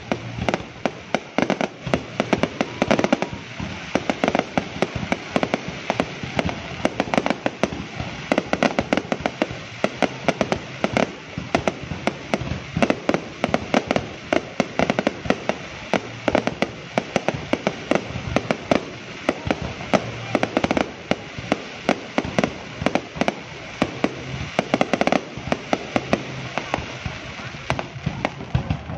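Aerial fireworks display: a dense, continuous barrage of shell bursts and crackling, many sharp bangs a second.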